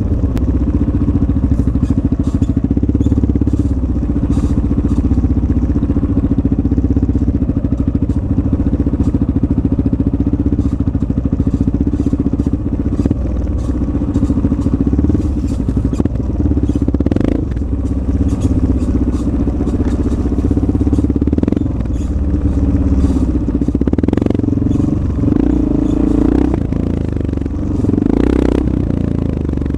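A 250 cc single-cylinder four-stroke trail motorcycle running at low speed on a rough dirt path, with rattles and knocks from the bike over the bumps; the engine note swells briefly a few times in the second half.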